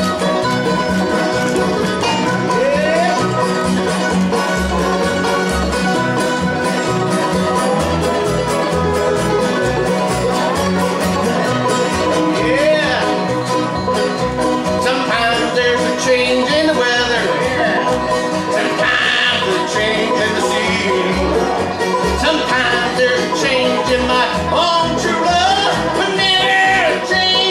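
Bluegrass band playing live: banjo rolls over mandolin, acoustic guitars and upright bass. A man's voice comes in singing lead about halfway through.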